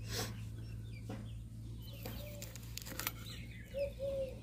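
A hen clucking softly a few times, short arched calls, the last two close together near the end, over a steady low hum.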